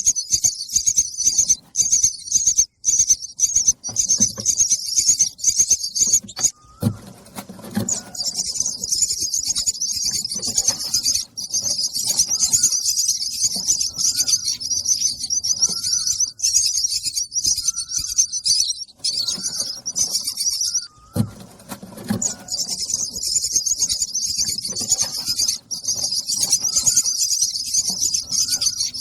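Nestlings begging for food: a rapid, near-continuous high-pitched chirping that breaks off briefly about seven seconds in and again about twenty-one seconds in, with faint low knocks and rustling at those breaks.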